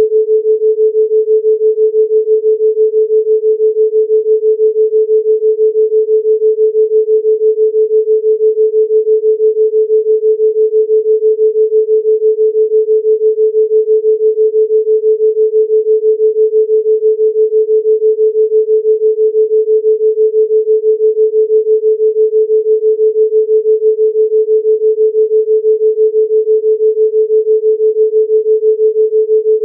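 Electronically generated 432 Hz pure sine tone for a theta binaural beat, held steady with an even, quick wavering in loudness several times a second.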